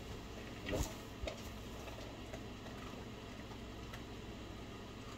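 Quiet room with a low steady hum. A soft knock comes about a second in, then a sharper click, and faint scattered ticks follow at irregular spacing.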